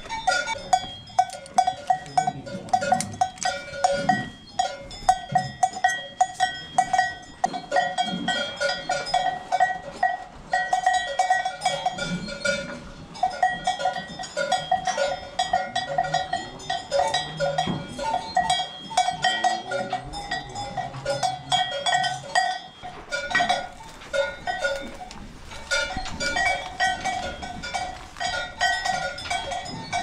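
Metal tie chains clinking and rattling against steel stanchion pipes and the feed rail as tied dairy cows eat, a constant jangle of quick metallic clicks and ringing. The cows give a few low calls.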